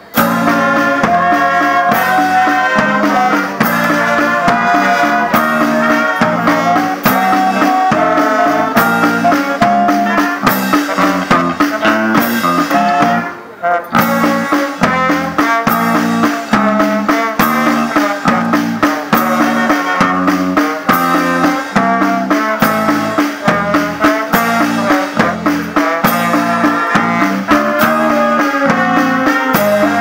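Brass band of saxophones, trumpets and trombone with snare drum, bass drum and bass guitar playing a tune over a steady beat. The band comes in suddenly at the start and breaks off briefly about halfway through before playing on.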